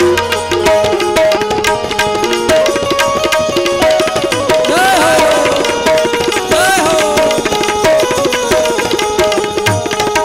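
Instrumental interlude of a devotional bhajan: a harmonium melody over a fast hand-drum rhythm, with two brief wavering high notes about five and seven seconds in.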